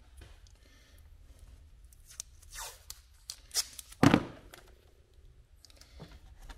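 Strips of blue painter's tape torn off the roll in short rips, with a loud knock about four seconds in and light handling noises on the bench.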